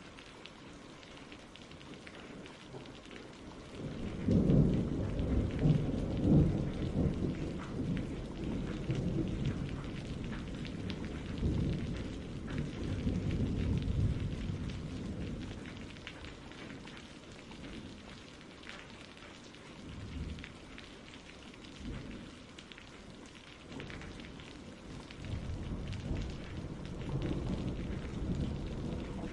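Steady rain with rolling thunder. A heavy rumble builds about four seconds in and lingers for several seconds, then eases, with softer rumbles returning toward the end.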